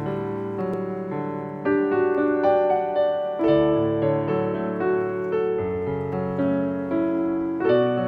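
Background music on piano: notes and chords struck one after another and left to fade.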